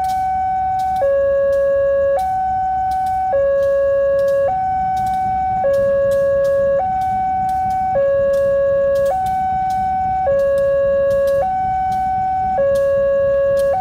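Electronic two-tone warning alarm alternating steadily between a higher and a lower tone, each held for about a second.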